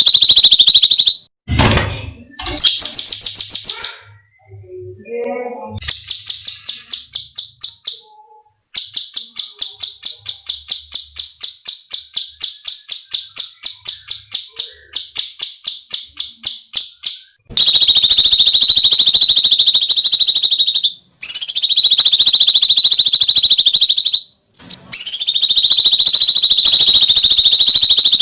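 Cucak cungkok singing loud, harsh, buzzy screeches broken by short gaps, with a run of rapid clipped notes at about four a second in the middle.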